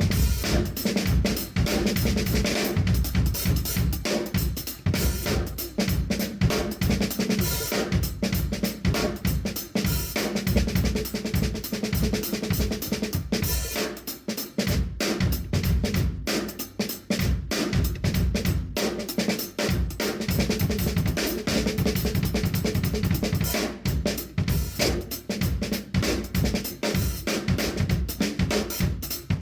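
A full drum kit played continuously in a steady groove: kick drum, snare, hi-hat and cymbals, with a brief let-up about halfway through.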